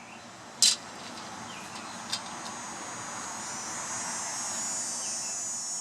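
Outdoor insect chorus: a steady high-pitched buzz that grows slightly louder. A sharp click sounds about two-thirds of a second in and a fainter one at about two seconds.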